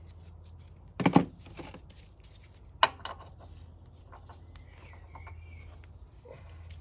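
Metal hand tools clinking while a spark plug is refitted to a lawn mower engine: a loud clatter about a second in and a sharp metallic click near three seconds, with smaller taps between, over a steady low hum.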